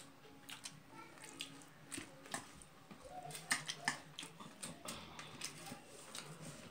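Eating by hand from a steel plate: fingers mixing rice against the metal and chewing, heard as scattered soft clicks and taps.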